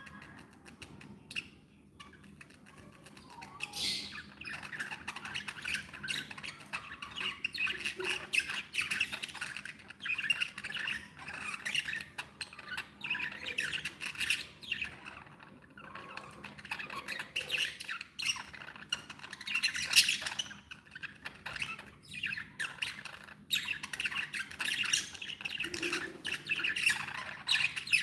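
Budgerigars chattering, a dense run of chirps, warbles and squawks; sparse for the first few seconds, then busy from about four seconds in.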